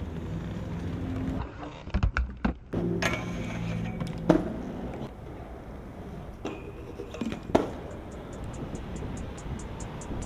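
Aggressive inline skates rolling on concrete and asphalt, with a cluster of heavy thumps and clacks about two seconds in and single sharp clacks around four and seven and a half seconds in. From about eight seconds a fast, even ticking comes in, about three ticks a second.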